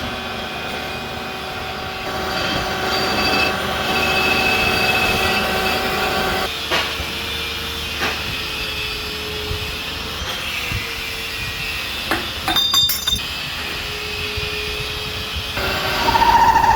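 Tractor engine running steadily, with a few sharp metallic clinks around the middle. A louder, higher whine starts near the end.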